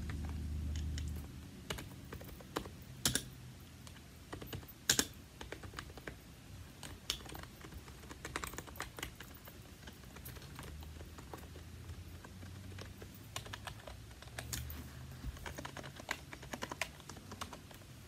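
Continuous typing on an Ajazz DKS100 quiet keyboard: a quick run of key presses with a few louder strokes about three and five seconds in. The typist calls the sound satisfying.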